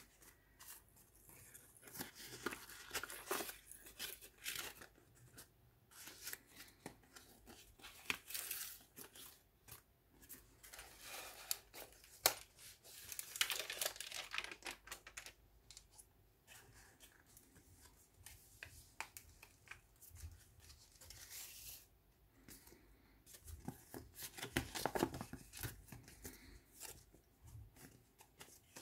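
Paper rustling and crinkling in irregular spells with short quiet gaps, as a handmade junk journal's pages, folded paper pockets and tucked-in cards are handled and turned.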